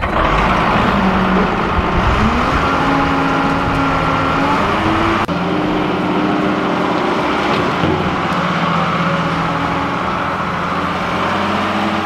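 Dresser wheel loader's diesel engine running as it drives, its pitch rising about two seconds in and then holding steady.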